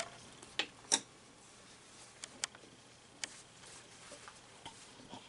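Small clicks and taps of hands fitting a shoulder pad and cape strap onto a collectible statue. There are a few sharp ticks spread over several seconds, the loudest about a second in.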